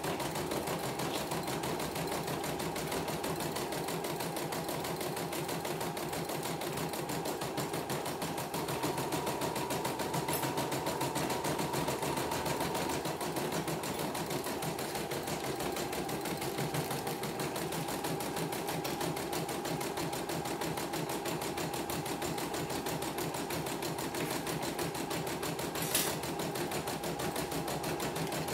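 CNY computerized embroidery machine stitching a test design: the needle runs at a fast, steady rhythm while the hoop carriage moves the fabric, with a faint steady whine through it. One sharp tick comes near the end.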